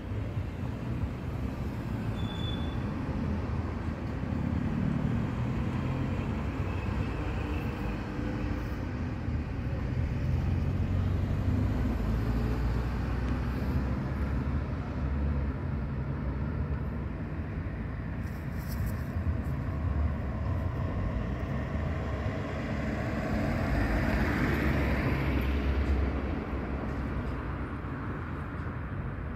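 Steady street traffic noise with a low rumble, swelling as a vehicle passes near the end.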